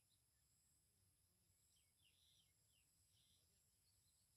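Near silence, with faint scattered bird chirps.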